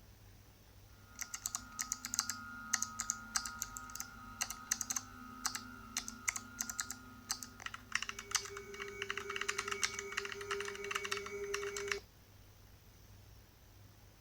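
Typing on a computer keyboard: rapid, irregular key clicks over a few steady electronic hum tones. It starts about a second in and cuts off suddenly about twelve seconds in.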